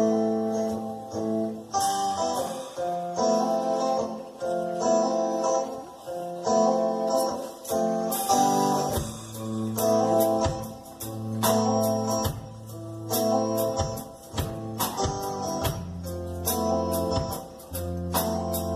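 Live band playing an instrumental passage led by guitar, with drums and bass coming in about halfway through.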